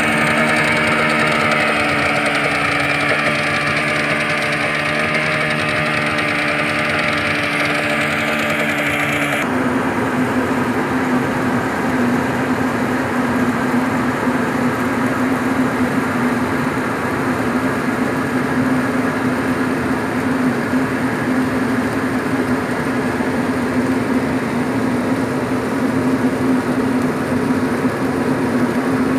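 Yamaha Enduro 40 two-stroke outboard motor idling steadily close by. About nine seconds in, the sound cuts abruptly to a different steady engine hum with one strong low drone.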